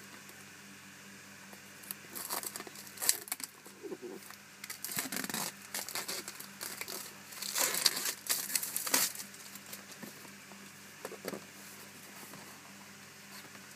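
Clear plastic wrapping being crinkled and torn off a cardboard product box, in scattered bursts of crackling between about two and nine seconds in, loudest near eight seconds, with one short crinkle near the end.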